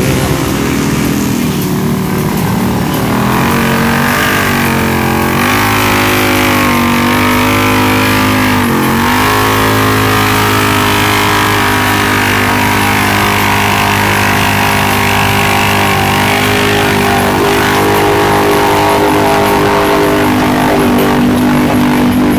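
Polaris RZR side-by-side's engine running hard under load in deep mud, its pitch dipping and climbing back twice as the throttle is worked, then holding steady.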